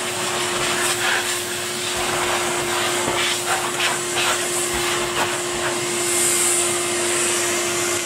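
Henry canister vacuum cleaner running steadily, a rushing suction noise with a constant motor hum, as its hose and brush nozzle work along the window frame and sill. Light knocks of the nozzle against the frame now and then.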